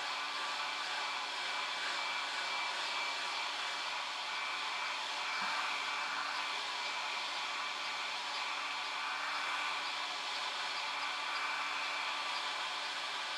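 Steady whirring hiss with a few faint steady tones underneath, unchanging throughout.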